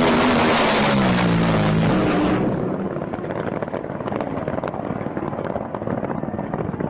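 Racing powerboat engine running hard at high speed, its note dropping slightly over the first two seconds. It cuts off abruptly and gives way to a rougher, quieter noise of rushing spray and wind with scattered crackles.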